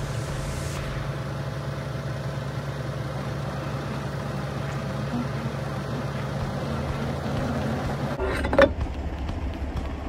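Diesel semi-truck engine idling steadily, with a sharp knock about eight and a half seconds in as frozen snow is struck off the flatbed trailer's underside.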